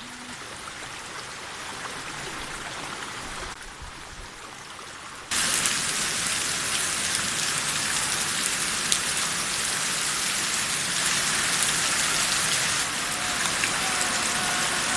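Heavy rain pouring down, a dense steady patter that becomes much louder about five seconds in.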